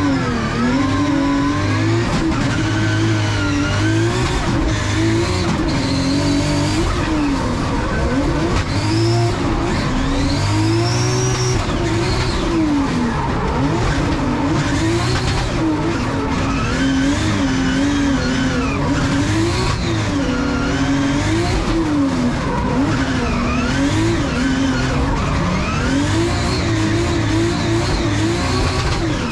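Nissan S14 drift car's 2JZ straight-six engine, heard from inside the cabin, revving hard through a drift run, its pitch climbing and falling again and again, with tyres squealing as the car slides.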